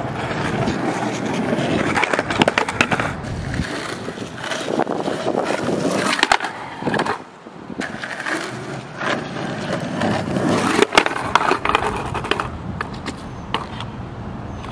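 Skateboard wheels rolling over rough concrete, with several sharp clacks of the board hitting the ground.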